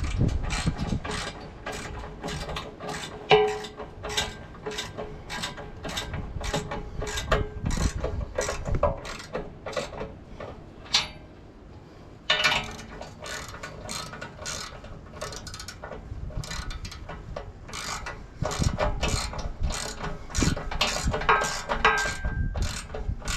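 Hand ratchet wrench clicking steadily as a mounting bolt for a fifth-wheel hitch is run down, about two to three clicks a second. It pauses briefly about halfway through, then carries on.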